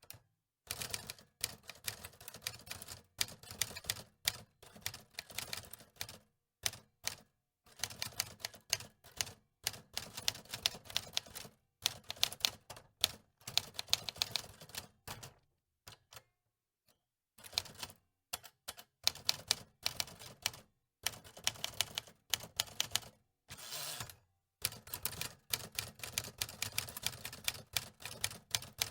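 Antique manual typewriter being typed on: rapid clacking of the keys in runs of a few seconds, broken by short pauses. The longest pause comes a little past halfway.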